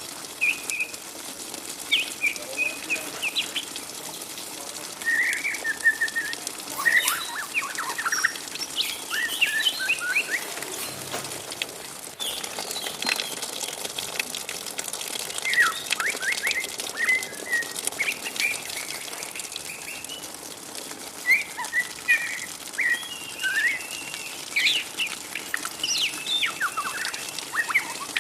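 Juvenile white-rumped shama, still in spotted fledgling plumage, twittering: short, rapid, irregular chirps and squeaky notes in clusters with brief gaps.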